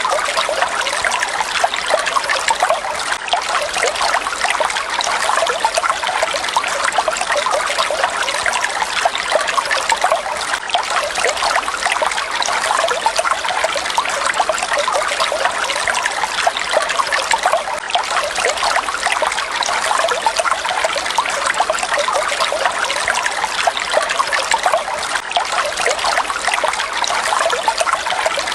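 Falling water splashing and trickling steadily, a dense even patter with no change.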